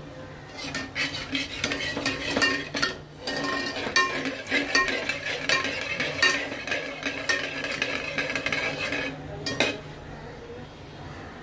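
Stainless steel perforated skimmer stirring chili flakes and whole spices in hot oil, scraping and clinking against the aluminium pot, with a short pause about three seconds in. The stirring eases near the end.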